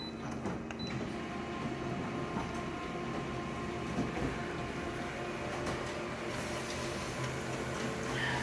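Colour office photocopier starting a copy job: two short electronic beeps as its touchscreen is pressed, then the machine running with a steady mechanical whir that grows louder and hissier about six seconds in as the copy feeds out into the tray.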